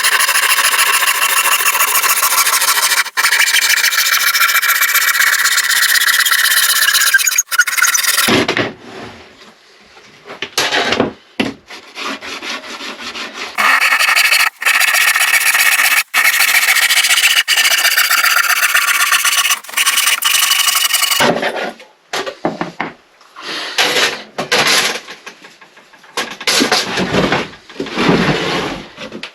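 Power tool working wood in two long runs of about eight seconds each, its pitch sagging and recovering as it bites, with short bursts and handling noises between and after.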